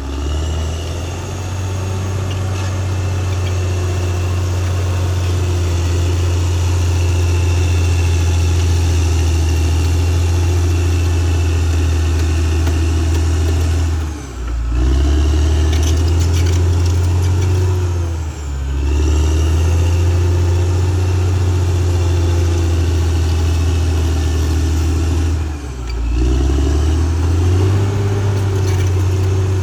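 Caterpillar D6R XL bulldozer's diesel engine working steadily. The engine note dips briefly and picks back up three times, as the throttle eases off and opens again.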